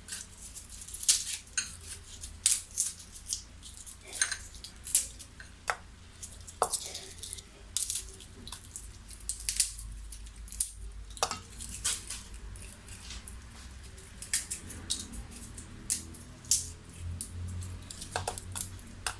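A head of garlic being broken apart into unpeeled cloves that are dropped into a saucepan: irregular sharp clicks and taps.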